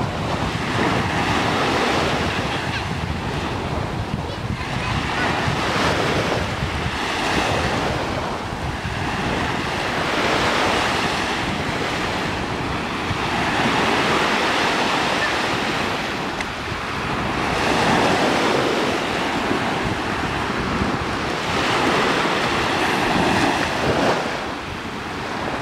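Small waves breaking and washing up the sand at the shoreline, the surf swelling every four seconds or so, with wind rumbling on the microphone.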